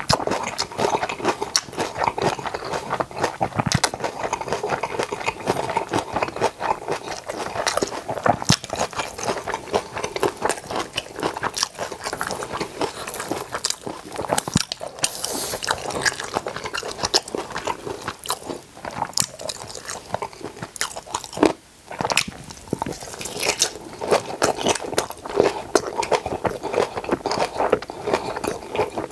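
A person eating close to the microphone, chewing and crunching fresh napa-cabbage kimchi and boiled pork, with many quick wet mouth clicks. About halfway through comes a crisper tearing sound as a kimchi leaf is pulled apart by hand.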